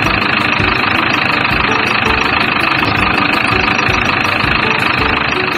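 Truck engine running steadily as the truck drives off.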